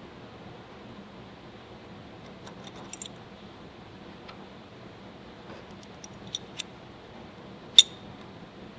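Small metal clinks of a bolt, nut and washer being handled and fitted by hand at a motorcycle's rear shock mount. A few scattered clicks sound over a steady faint background hum, the loudest a sharp clink near the end.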